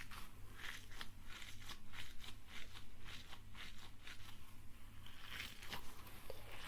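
Fidget toys being handled close to the microphone: an irregular run of crisp clicks and crunchy crackles, several a second.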